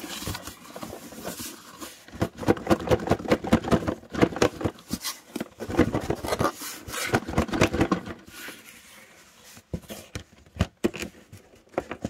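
Cardboard shipping box being handled and worked open, its contents stuck inside: a quick, busy run of cardboard scraping, rubbing and knocking, busiest from about two to eight seconds in.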